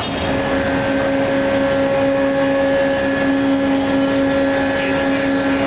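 A rail-mounted E-Crane 2000 Series material handler running its electric-driven hydraulic power unit: a loud, steady mechanical hum with a constant droning tone and no change in pitch.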